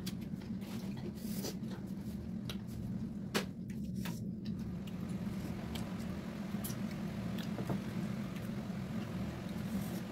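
Close-up eating sounds of rice eaten by hand: wet squishing as fingers knead rice and gravy on steel plates, chewing, and many small clicks, with one sharper click about three and a half seconds in, over a steady low hum.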